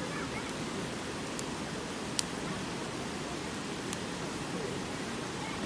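Wood bonfire burning with a steady rushing hiss and a few sharp crackling pops, the loudest about two seconds in.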